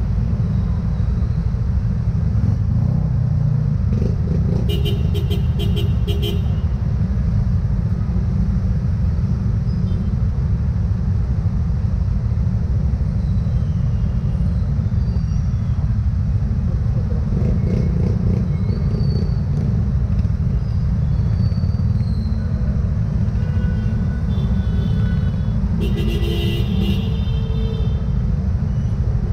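Steady low rumble of a motorcycle and the surrounding traffic in slow, congested flow. Short vehicle horn toots sound about five seconds in and again near the end.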